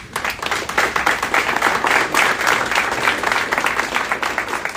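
A small audience applauding: many people clapping at once in a dense, steady patter.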